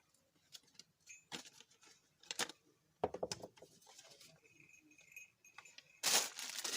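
Small clicks, knocks and clinks of mixer grinder parts being handled and pried loose during disassembly, busier from about halfway, with a louder rustling crinkle near the end.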